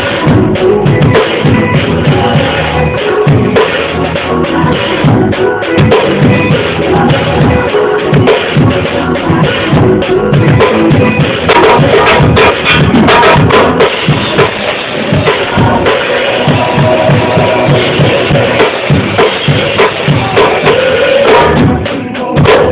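Loud music driven by a drum kit, with bass drum and snare hits keeping a steady beat under a dense band sound.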